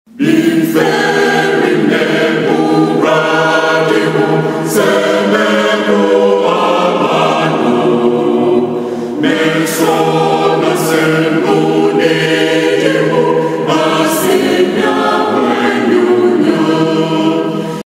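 A choir singing a cappella, several voices holding chords that change every second or so; it cuts off suddenly near the end.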